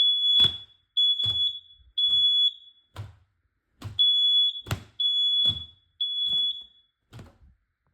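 Smoke alarm sounding the temporal-three pattern: two sets of three high-pitched beeps with a pause between them, then it stops after the second set. Dull knocks recur between the beeps.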